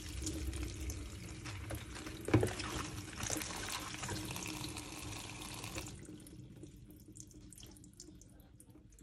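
Kitchen tap running onto kale leaves in a plastic drainer basket over a stainless steel sink, with hands rubbing the leaves under the stream and one sharp knock about two seconds in. The flow stops about six seconds in, leaving faint drips as the water drains.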